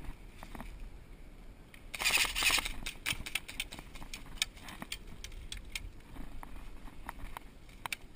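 A rapid burst of airsoft gunfire about two seconds in, lasting under a second, followed by scattered sharp single clicks and taps.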